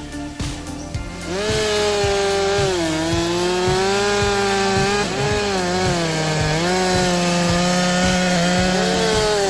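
Chainsaw starting about a second in and running at high revs as it cuts into wood, its pitch sagging and recovering several times under load.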